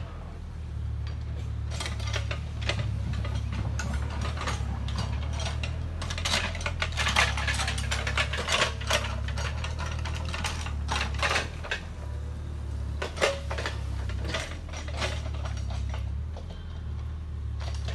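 Mini excavator working earth: its diesel engine running with a steady low drone, and irregular clanking and rattling of the tracks and bucket, busiest in the middle.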